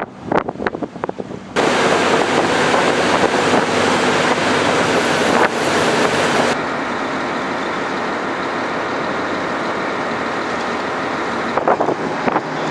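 Wind buffeting the microphone, then from about a second and a half in the loud rush of a lifeboat's churning wake and spray with its engine running at speed. About six and a half seconds in it drops to a steadier engine drone under the wind, with a few more gusts near the end.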